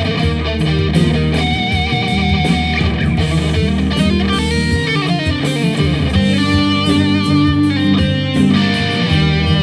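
Jackson electric guitar playing a melodic lead line: held notes shaken with wide vibrato, then notes bent up and down, over steady low notes.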